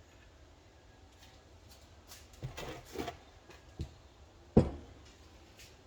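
A few short metal clicks and knocks from about two and a half seconds in, with one sharper, louder knock a little before the end: small metal parts and a tool being handled and set down at a workbench vise.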